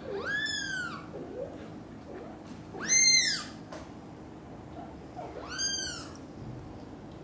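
A tiny British shorthair kitten meowing three times, high-pitched calls that rise and fall in pitch, the middle one the loudest.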